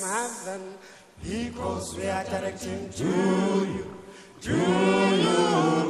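A choir singing a chant-like song in phrases, with two short breaks between phrases.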